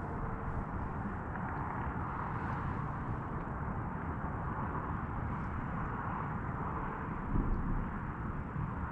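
Steady rumbling noise of wind buffeting a chest-mounted action camera's microphone, swelling briefly about seven seconds in.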